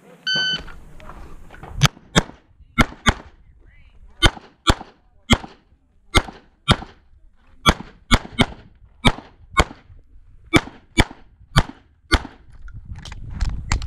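Electronic shot-timer start beep, then a CZ 75 SP-01 9mm pistol firing about twenty shots, mostly in fast pairs with short pauses between the pairs.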